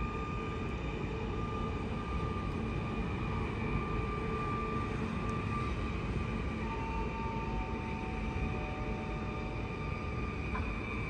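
Electric multiple-unit train pulling slowly away along the far platform: a steady low rumble with the whine of its traction motors, a few new whining tones joining in over the second half.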